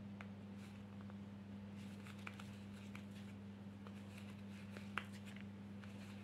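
Quiet crochet handling: a crochet hook and cotton yarn worked through stitches, with a few faint ticks, over a steady low electrical hum.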